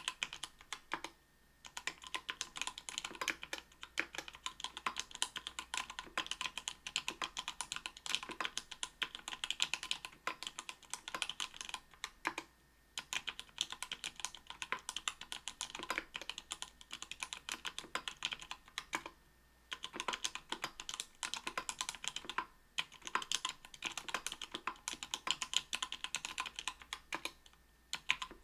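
Continuous typing on a mechanical keyboard with Everglide Sky Blue 55g linear switches lubed with Krytox 105, in an aluminium plate with GMK keycaps: quick, irregular keystroke clacks, broken by brief pauses about 1.5, 12.5, 19.5, 22.5 and 28 seconds in.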